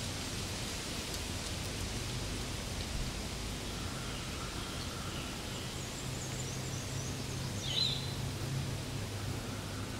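Steady outdoor background hiss with a low hum underneath. A few faint high chirps come in past the middle, and a brief squeak near the end is the loudest moment.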